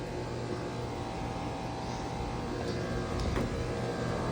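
Outdoor central air-conditioner and heat pump condensing units running in cooling mode: a steady low compressor hum under the rush of the condenser fans, with a couple of faint clicks about three seconds in.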